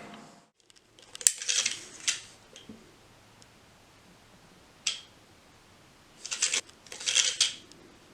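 Small hard objects being handled: short clicks and rattles in three bunches, about a second in, once near five seconds, and a longer run near the end.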